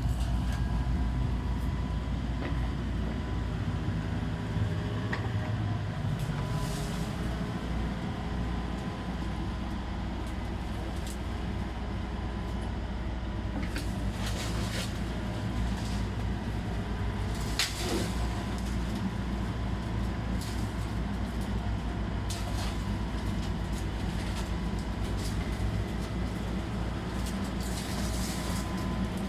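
Excavator's diesel engine running steadily under load, with a thin hydraulic whine and a few sharp knocks and creaks as it works.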